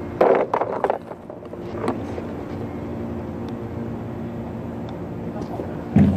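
A motor running steadily with an even, engine-like hum, with a few short louder knocks and scuffs in the first second and a brief low thump at the very end.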